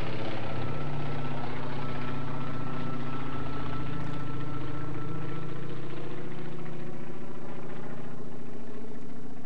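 Propeller plane's piston engine droning steadily, fading out near the end.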